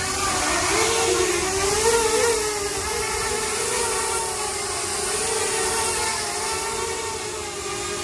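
Six small electric motors and 4-inch propellers of a 1:30 scale RC tilt-rotor eVTOL model hovering, a steady propeller whine whose pitch wavers up and down as the flight controller varies the motor speeds.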